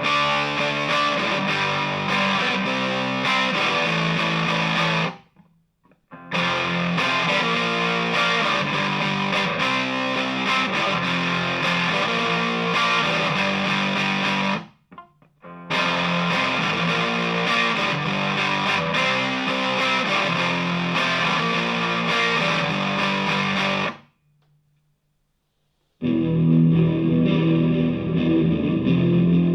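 Electric guitar, a Vintage V100 Les Paul copy, played through DigiTech GNX3 multi-effects presets into an H&K Attax Metroverb amp. The playing breaks off briefly about five and fifteen seconds in and for two seconds near the end, where the patch changes, and then comes back with a darker tone.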